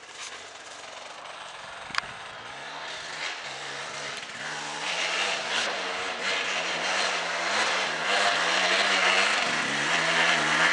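Enduro dirt bike engine revving up and down, growing louder over the second half as the bike approaches. A single sharp click about two seconds in.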